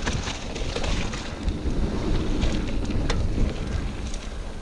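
Mountain bike riding down dirt singletrack: wind buffeting the microphone over a steady rumble of tyres on the trail, with a few sharp clicks and knocks as the bike rattles over bumps.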